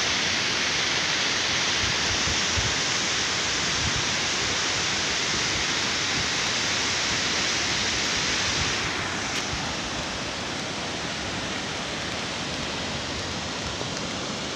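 Steady rush of a mountain stream cascading over rocks below a suspension bridge, easing a little about nine seconds in.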